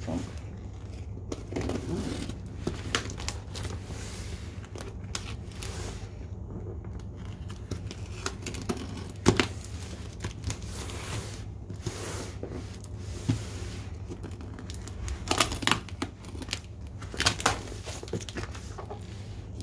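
A hobby knife slitting packing tape on a cardboard box, with tape tearing, cardboard scraping and flaps being pulled open: a string of short scrapes and sharp clicks, the loudest about halfway through and a few more near the end.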